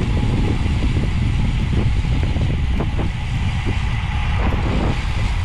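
Steady wind rush and low rumble on the microphone of a camera on a road bike ridden fast in a group over asphalt.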